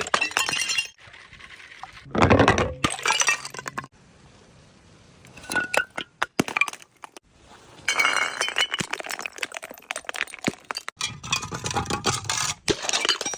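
Glass bottles breaking, with shards clinking and crackling: a few separate smashes, then from about eight seconds in a long run of dense crunching and tinkling glass.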